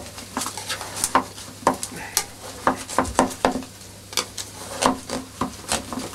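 Knife blade scraping and clicking against the inside wall of a metal farçon mould, a run of short, irregular scrapes, as it is worked around the edge to loosen the baked farçon.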